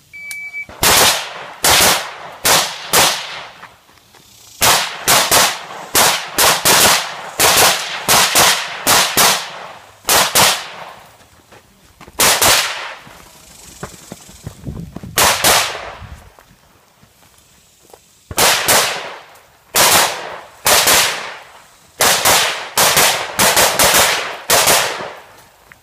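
A shot timer beeps once just after the start, then gunshots from a 3-gun competitor's guns ring out in quick strings of several shots each, with short pauses between strings.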